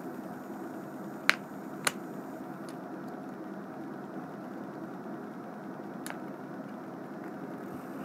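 Steady room hum with a few sharp clicks from handling a snap bracelet being taken apart: two loud clicks about a second and a half and two seconds in, and a fainter one around six seconds.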